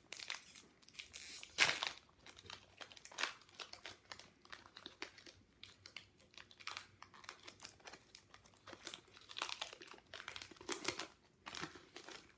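Foil wrapper of a Pokémon booster pack being torn open and handled: irregular crinkling and tearing, loudest about a second and a half in.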